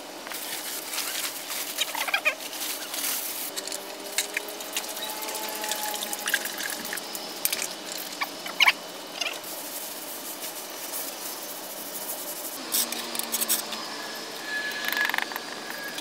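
Masonry work on a brick floor: trowels scraping cement over bricks and into the joints, with scattered irregular taps and knocks of tools and bricks.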